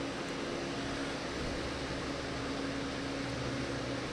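Electric fan running steadily: an even whir with a low hum under it.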